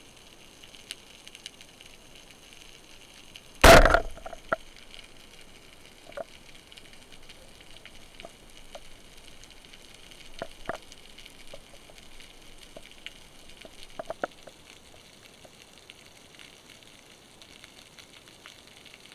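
Roller-head speargun (Omer HF 100 with inverter rubbers) firing underwater: one loud, short shot about four seconds in. After it come faint scattered clicks over a steady underwater hiss.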